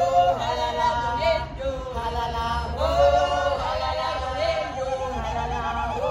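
Several voices singing together without instruments, a choral chant with held notes.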